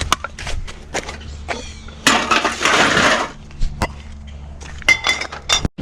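Scrap metal being handled: a string of knocks and clinks, with a longer scraping rattle about two seconds in and a short ringing metal clink near the end.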